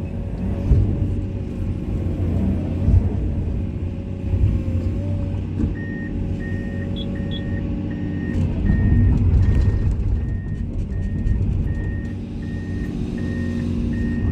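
Komatsu excavator's diesel engine running under load, with a few knocks in the first half. About six seconds in, a motion alarm starts beeping about twice a second, the kind that sounds while the machine tracks.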